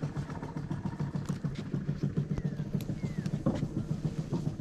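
A small engine running steadily with a fast, even pulse. Two short, high, falling chirps come about halfway through.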